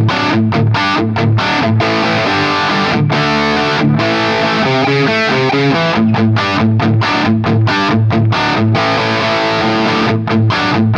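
Electric guitar on its bridge pickup, played distorted in rhythmic chord-and-note phrases for a blind tone test. About ten seconds in, the first guitar stops and a second guitar starts playing.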